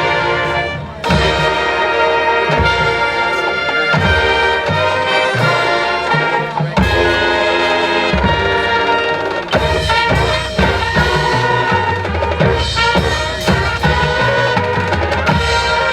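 High school marching band playing loudly: brass section with drumline hits underneath, briefly dropping about a second in before the full band comes back in.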